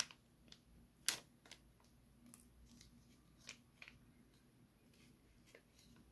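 Faint crinkling and tearing of a single-use eye-patch sachet being opened by hand: a handful of short sharp crackles, the loudest about a second in.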